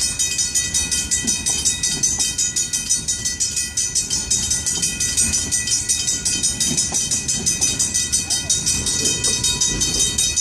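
Griswold mechanical crossing bells ringing continuously in rapid, even strokes as a slow freight train's boxcars roll past, with a low rumble and clatter of wheels on the rails underneath.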